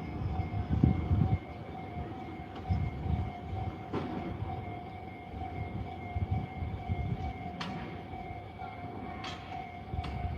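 A train running through a closed level crossing, its wheels rumbling and clattering in uneven low surges. Over it the crossing's warning alarm keeps sounding as a steady high tone, with a few sharp clicks from the track.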